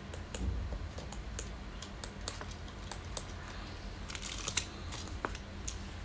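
Irregular sharp clicks of key-fob remote control buttons being pressed, with a denser flurry of clicking and rustling about four seconds in.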